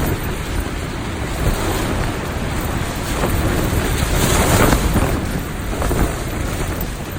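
Strong gusting wind, rumbling on the microphone, swelling into a stronger gust about four to five seconds in.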